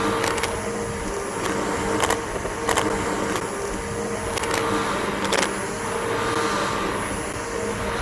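Bissell BigGreen PowerForce upright vacuum cleaner running steadily outdoors on grass, its motor giving a constant whine over a rushing of air. Sharp clicks come every second or so as debris is drawn in.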